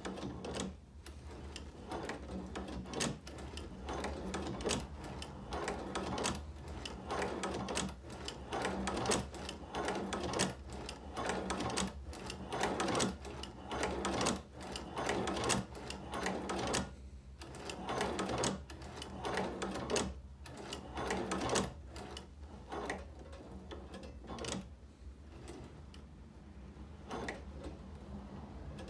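Chinese hand-crank leather patcher (shoe repair) sewing machine being cranked by hand to stitch leather. Its mechanism and needle give a steady, rhythmic run of clicks and clacks that grows fainter over the last few seconds.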